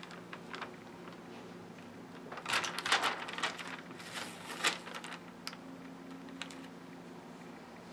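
Fingers handling a rhinestone iron-on transfer on satin fabric: soft rustling and light ticking of the clear plastic film and the stones, in a few scattered clusters, the busiest about two and a half to three and a half seconds in.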